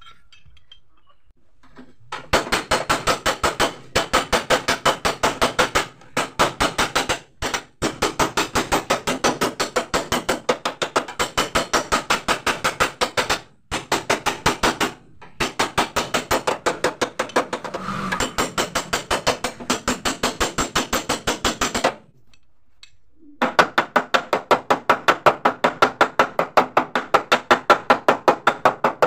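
A small body hammer taps rapidly on steel against the flat bar held to a dented Mitsubishi L300 van door panel, working the dent out without damaging the paint. The sharp metallic taps come in long runs of about five a second, broken by a few short pauses.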